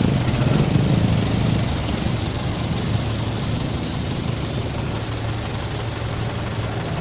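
A vehicle engine running steadily at a low, even hum that eases slightly over the first couple of seconds and then holds level.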